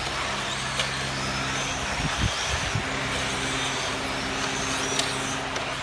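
Electric motors of radio-controlled model trucks whining as they race, the pitch rising and falling as they speed up and slow down, over a steady low hum and a general noise.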